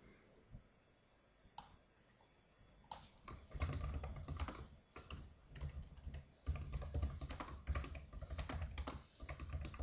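Typing on a computer keyboard: after a near-quiet stretch with a single click, quick runs of keystrokes start about three seconds in and go on with short pauses.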